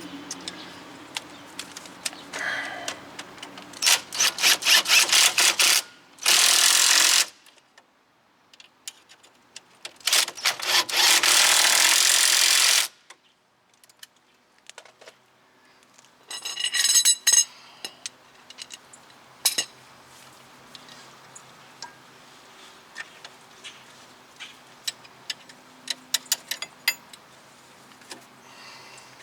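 Impact wrench run in four loud bursts, some hammering rapidly and some spinning steadily, as it tightens the nuts on the strut-to-knuckle bolts. Scattered light clicks follow.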